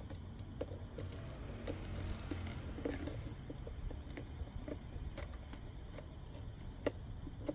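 Scattered light clicks, taps and small rattles of parts and tools being handled, over a steady low hum.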